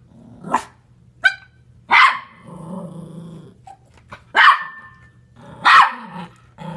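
Small terrier-type dogs barking and growling as one harasses the other: about five short, sharp barks, the last three loudest, with low growling in between.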